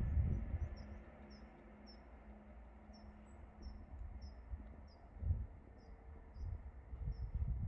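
Wind gusting on the microphone in low rumbles, strongest at the start and again in the second half. Through it runs a steady series of short, high chirps, about two a second.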